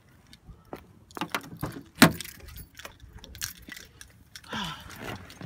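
Keys jangling with scattered clicks and knocks as the driver's door of a 2005 Pontiac Grand Prix is unlatched and swung open, the sharpest knock about two seconds in.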